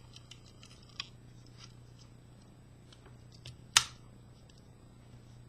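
Light metallic clicks of a Victorinox Swiss Army knife's tools being handled and opened, with a sharp, louder click a little before four seconds in as a tool snaps into position.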